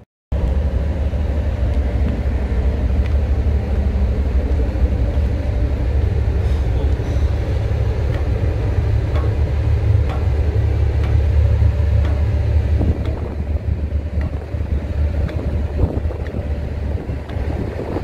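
Strong wind buffeting the phone's microphone, a heavy, unsteady low rumble, with a few faint taps of footsteps on steel ladder steps.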